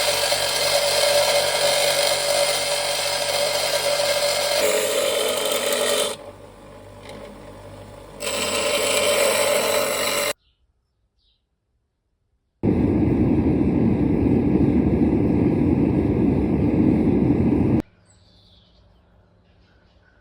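Power tools shaping a knife in short cut-together clips: a machine with a steady whine runs for about six seconds, drops lower for two, and comes back. After a short silence a lower, coarser machine noise runs for about five seconds, then only faint sound remains.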